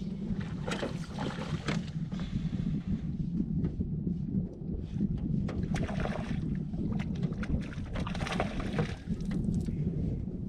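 Lake water slapping irregularly against the hull of a small drifting fishing boat, over a steady low rumble of wind on the microphone.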